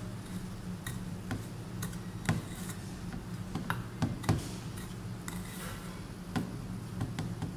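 A steel spoon clicking and scraping against a steel bowl at irregular moments while mixing powdered sugar into a thick paste, over a steady low hum.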